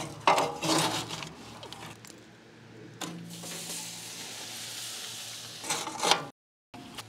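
Metal shovel scraping hot coals out of an offset smoker's steel firebox and tipping them into the cook chamber. There is a rattling scrape about a second in and another near six seconds, with a steady hiss between them.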